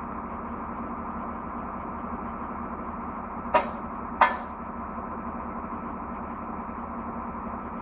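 Crane truck's engine running steadily, with two sharp knocks a little over half a second apart near the middle.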